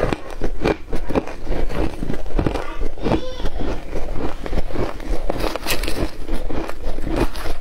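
Shaved ice being chewed close to the microphone: a run of many irregular crisp crunches, with a metal spoon scooping into the ice near the end.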